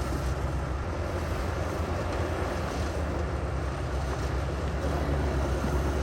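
Heavy diesel engine of earthmoving equipment running steadily at a constant low rumble.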